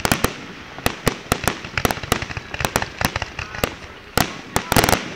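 Aerial fireworks shells bursting overhead: a rapid, irregular series of sharp bangs and crackles, thickening into a dense cluster of reports near the end.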